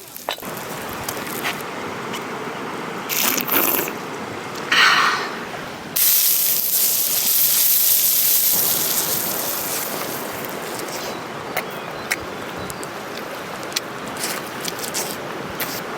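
Cooking sounds: a steady hiss with scattered clicks and crackles, and a sudden louder rush of hissing about six seconds in that slowly dies away over several seconds.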